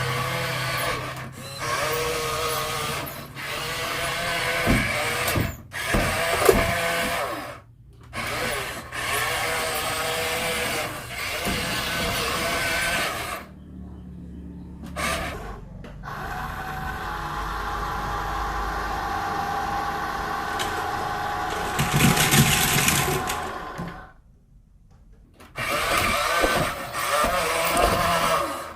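Small electric motors of remote-control toy trucks and an excavator running with a steady whine, in several stretches that cut off abruptly and start again.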